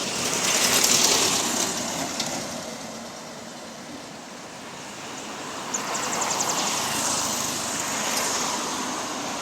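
Road vehicles passing, their noise swelling about a second in and again a few seconds later.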